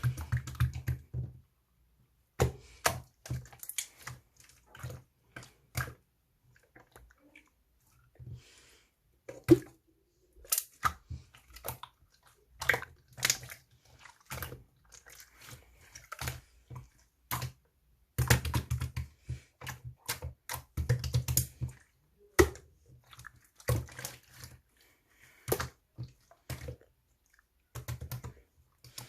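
Slime being squeezed, stretched and poked by hand, giving irregular sharp clicks and crackling pops of trapped air, sometimes in quick dense runs and sometimes with short pauses between.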